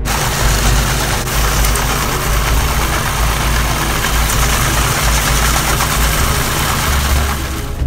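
Walk-behind concrete power trowel running: its small engine runs steadily while the spinning blades work a fresh concrete slab, giving a loud, even, hissing machine noise.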